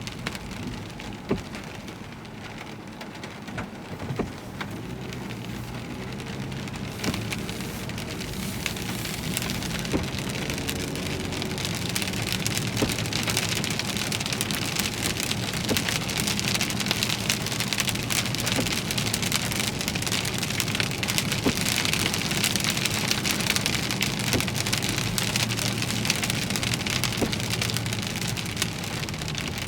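Heavy rain drumming on a car, with individual drops ticking sharply, growing heavier and louder about ten seconds in. A low steady hum runs underneath.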